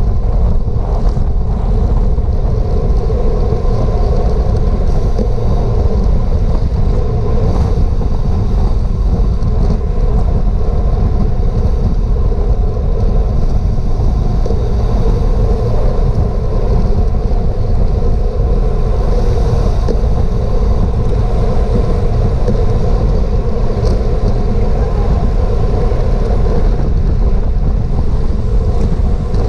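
Steady, loud wind rush on a GoPro's microphone, carried on a bicycle at racing speed.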